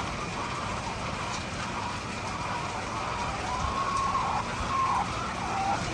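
Chickens giving long, drawn-out calls that waver and dip in pitch at their ends, over a steady background noise.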